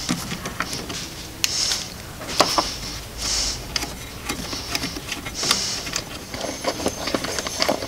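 Hand ratchet wrench clicking in short runs on its back-swings, loosening the 10 mm bolts that hold a wiper motor assembly, with scattered light metal clicks in between.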